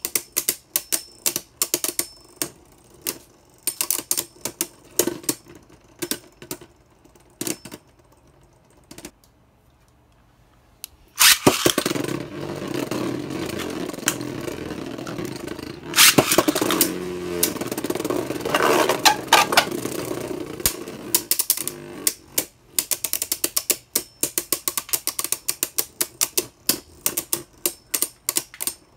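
Beyblade Burst spinning tops battling in a plastic stadium: rapid sharp clicks as the tops strike each other and the stadium wall. Around the middle the clicking gives way to about ten seconds of continuous whirring and grinding while one top spins on its own, then quick clacking collisions start again near the end.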